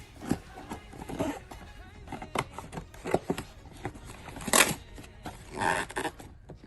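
Package and album packaging being handled and opened: scattered crinkles, taps and rustles, with a louder rustling burst about four and a half seconds in and another just before the end.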